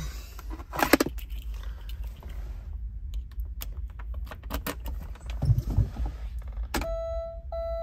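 A car key jangles and clicks as it is fitted into the ignition lock of a 1992 Porsche 911 Carrera 2 (964), before the cold start. About seven seconds in, the car's warning chime starts beeping steadily, about every two-thirds of a second, as the ignition is switched on. The engine is not yet running.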